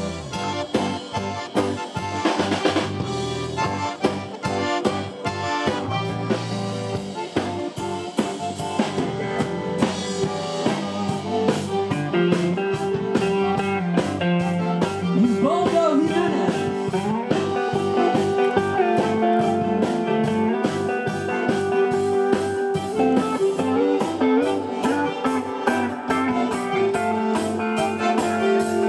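Blues band playing an instrumental passage, the drum kit keeping a steady beat under sustained guitar lines, with some bending notes around the middle.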